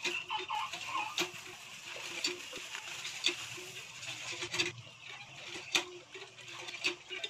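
Fish curry boiling in a kadai (wok), a steady bubbling hiss with many irregular pops and clicks.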